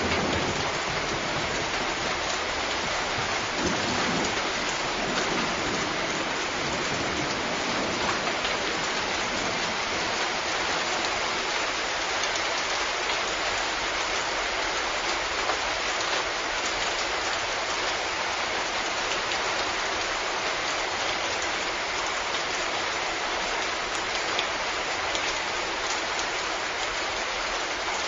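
Steady heavy rain falling, an even hiss of many drops with scattered closer patters, and a faint low rumble in the first few seconds.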